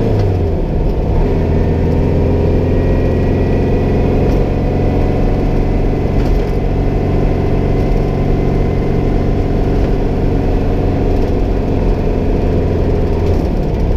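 The turbocharged engine of a 1956 VW Beetle running steadily under way, heard from inside the cabin as a continuous drone with road noise. Its pitch dips slightly at the start, then holds level.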